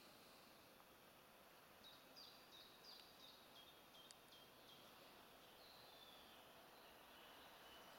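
Near silence with a faint songbird: a quick run of short, high notes stepping down in pitch, a couple of seconds long, then a fainter drawn-out high note.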